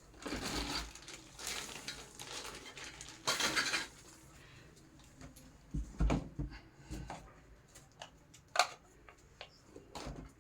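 Parts of a boxed baby high chair being taken out and handled: rustling packaging, then a few sharp knocks and clinks of hard pieces set down about six, eight and a half and ten seconds in.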